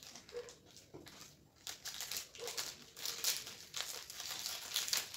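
Plastic biscuit wrapper crinkling with irregular crackles as it is cut and pulled open by hand.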